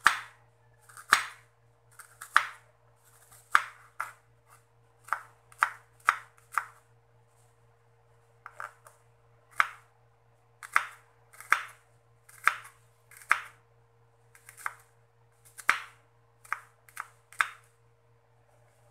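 Kitchen knife slicing a red onion on a wooden cutting board: a series of sharp knocks of the blade hitting the board, roughly one a second, with a short pause about six seconds in.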